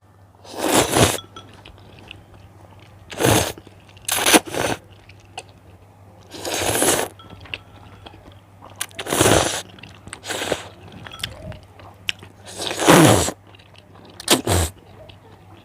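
Close-miked eating of spicy cheese noodles: about eight loud, noisy mouthfuls, each lasting up to a second, spaced a second or two apart.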